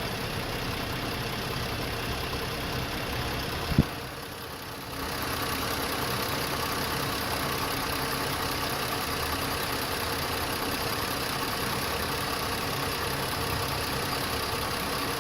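Car engine idling with a fast, even ticking, which the owner wonders is lifter tick. A single sharp knock about four seconds in, after which the engine sound is briefly quieter, then steady again.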